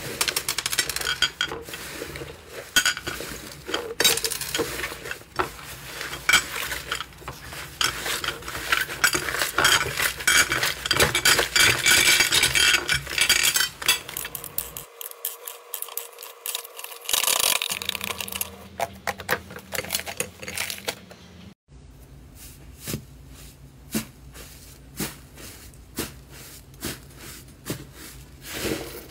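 Hands squeezing, kneading and stretching thick slime, with dense crackling, popping and small clicks. The sound changes abruptly twice, from one slime to another.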